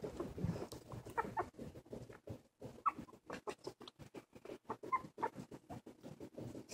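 Newborn silky terrier puppy giving a few short, high squeaks, over a quick run of soft ticking and scuffling sounds.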